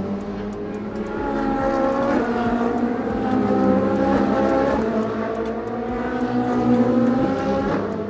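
Car engine revving, its pitch rising and falling several times, with a steady ticking rhythm of about three clicks a second behind it.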